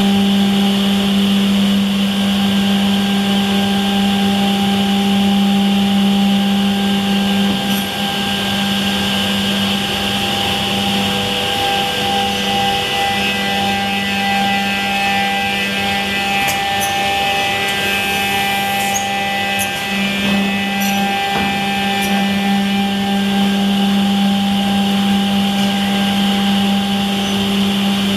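Cehisa 302 pass-through edge banding machine running with a steady motor hum. Higher tones and a few sharp clicks come and go in the middle stretch.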